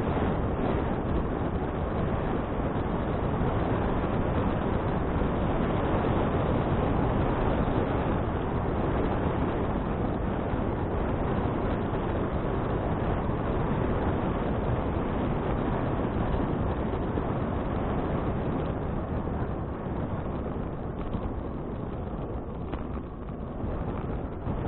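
Wind rushing over an action camera's microphone on a moving bicycle: a steady, rumbling noise that eases a little near the end.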